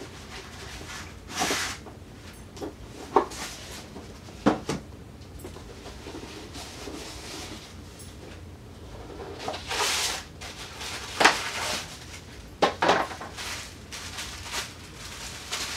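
Paper shopping bag and gift packaging being handled: irregular bursts of paper rustling and crinkling, with a few sharp knocks and clicks as items are set down.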